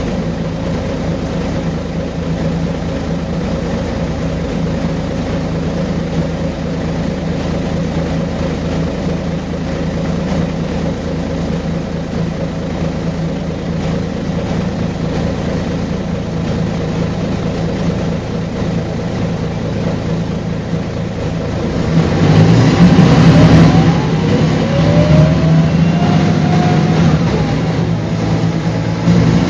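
Mercedes-Benz O405GN articulated city bus's diesel engine running steadily, then about 22 seconds in it grows louder as the bus accelerates, the engine note climbing twice.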